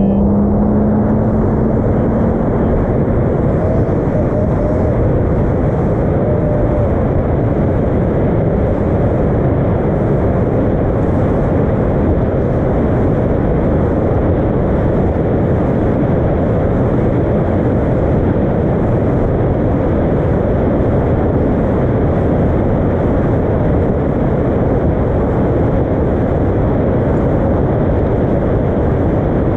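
Fishing boat running at speed on open water: a steady, unbroken rush of outboard motor, hull and wind noise. A brief tone climbs slightly in pitch during the first few seconds.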